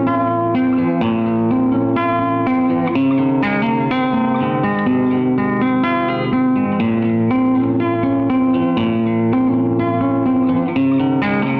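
Background music: guitar playing a steady run of plucked notes.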